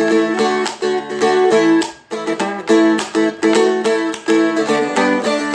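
Seagull Merlin, a four-string acoustic dulcimer-style instrument, strummed and picked in a quick rhythmic melody with chords. The notes break off briefly about two seconds in, then resume.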